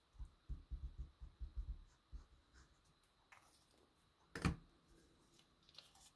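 Liquid glue bottle being squeezed and drawn over a small strip of cardstock, with a run of soft low knocks from handling on the craft mat in the first two seconds. A single sharp knock about four and a half seconds in as the bottle is set back down on the desk.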